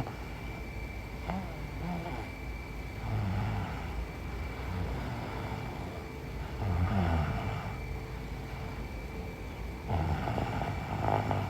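A sleeping woman snoring, three snores about three and a half seconds apart, near 3, 7 and 10 to 11 seconds in.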